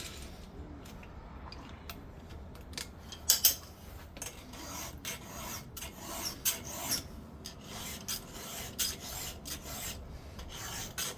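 Round file rasping across the cutter teeth of a chainsaw chain, sharpening it by hand with repeated push strokes, about two a second.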